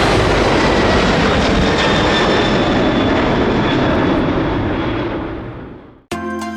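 A fixed-wing aircraft's engines passing loud and close, with faint high tones drifting slightly down in pitch; the sound fades away over the last two seconds. Background music starts just before the end.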